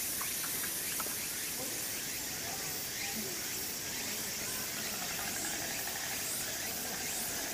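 Steady outdoor background hiss, with faint distant voices now and then.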